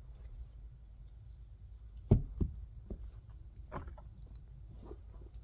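Hands rummaging in a fabric Christmas stocking and setting items down, with a few soft knocks. The loudest knock comes about two seconds in, with another right after it.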